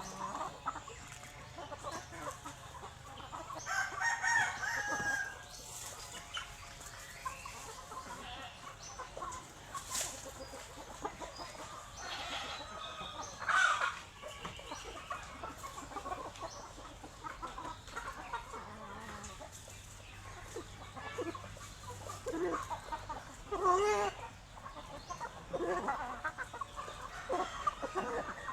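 Chickens clucking in short scattered calls, with a rooster crowing among them.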